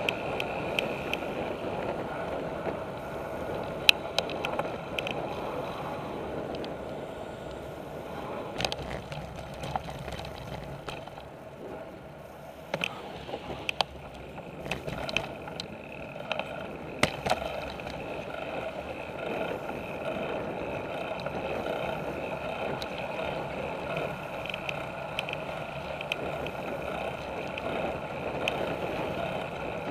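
Road bicycle riding, heard from a handlebar-mounted camera: steady tyre and wind noise, broken now and then by sharp knocks and rattles as the bike goes over bumps.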